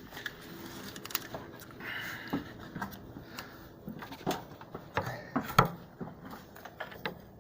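Irregular small clicks, taps and rustles of small parts and gasket fragments being handled and set down, with a few sharper knocks in the second half.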